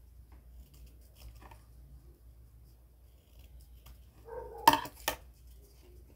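Scissors making small snips and clicks while trimming cardboard. About two-thirds in, two sharp knocks half a second apart, just after a short pitched sound, are the loudest sounds.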